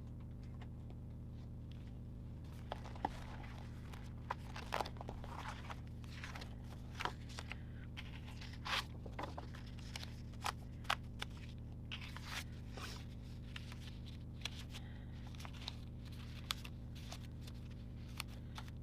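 Paper planner pages being handled on disc binding: irregular rustling, crunching and sharp clicks over a steady low hum.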